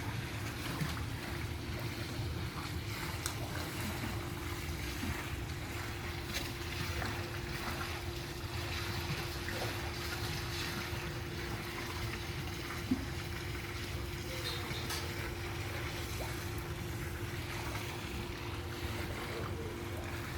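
Swimming pool water sloshing and lapping against the pool's edges, set in motion by an earthquake, over a steady low hum and rumble.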